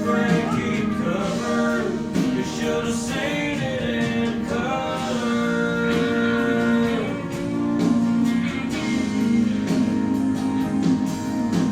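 A song playing: a voice singing over strummed acoustic guitar.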